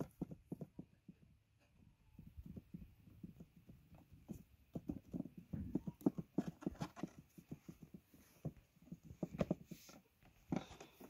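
A run of irregular light knocks and taps, several a second, with a few louder knocks about midway and near the end.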